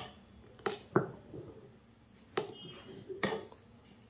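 Steel ladle stirring thick rice-and-lentil batter in a glass bowl, clinking sharply against the glass about five times.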